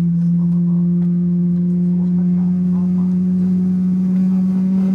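A Boeing 777-300ER's GE90 engine, heard from inside the cabin, making a loud steady droning hum that slowly rises in pitch as it spools up during engine start.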